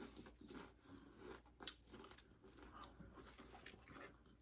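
Faint chewing and crunching of loaded nachos, with scattered crisp clicks from tortilla chips being bitten, the sharpest about one and a half seconds in.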